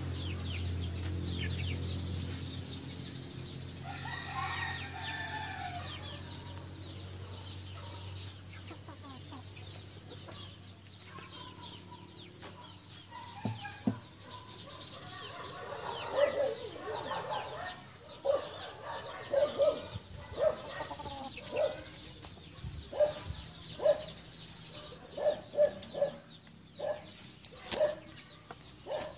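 Backyard chickens clucking, with one longer call about four seconds in and a run of short, repeated clucks through the second half.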